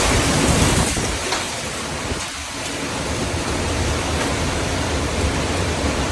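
Storm wind and heavy rain in a steady noise, with gusts buffeting the microphone in a rumbling low flutter.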